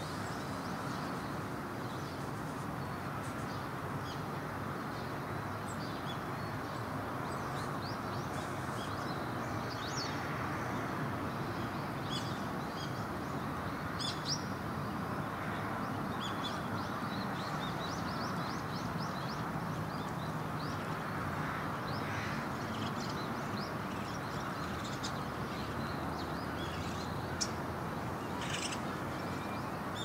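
Crows cawing now and then, with short high chirps of other birds, over a steady background rumble of outdoor noise.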